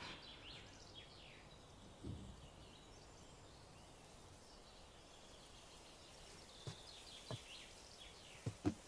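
Near silence: a faint outdoor background with quiet bird chirps, and a few soft knocks, one about two seconds in and several near the end.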